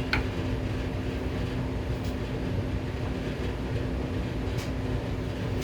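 Steady low rumble with a constant hum, with a few light clicks of wooden parts being handled and set in place.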